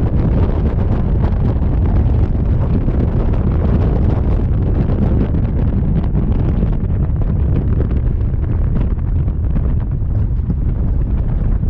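Steady, loud wind buffeting the microphone of a camera riding along on a moving scooter.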